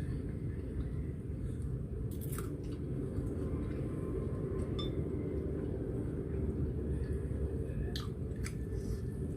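Close-up chewing of a mouthful of noodles, steady and wet, with a few short, sharp clicks.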